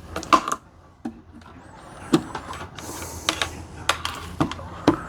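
A series of light clicks and knocks from handling tools and parts on a workbench, irregularly spaced.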